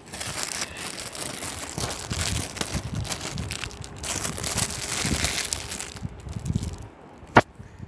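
Rustling and crinkling handling noise from fingers working a small plastic toy figure right against the microphone, with one sharp click near the end.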